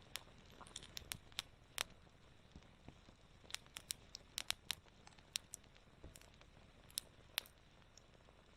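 Wood campfire crackling: irregular sharp pops and snaps, a dozen or so louder ones scattered over a faint steady hiss.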